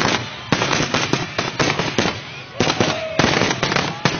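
Fireworks going off in a rapid, dense string of sharp cracks and bangs, several a second, with a few falling whistling tones among them.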